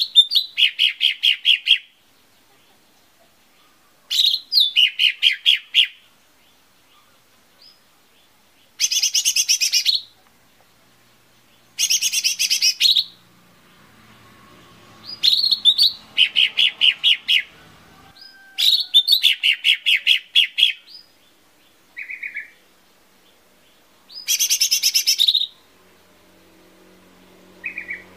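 Lesser green leafbird (cucak ijo mini) singing: phrases of one to two seconds, repeated every three to four seconds. Each phrase opens with a short high sweep and runs into a quick string of clipped notes, about eight a second. Some phrases are pitched higher and denser than others.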